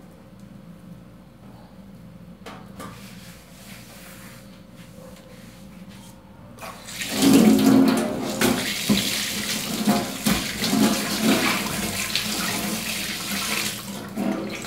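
A few faint handling clicks at first; about seven seconds in, a kitchen tap comes on and water runs hard into a stainless-steel sink, splashing as a dishcloth is rinsed under it.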